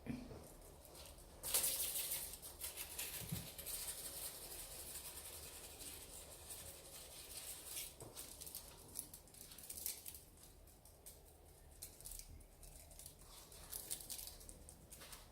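Kitten scratching and pattering with its claws, a rapid run of light clicks and scratches. They start suddenly about a second and a half in, thin out after about ten seconds, and come back briefly near the end.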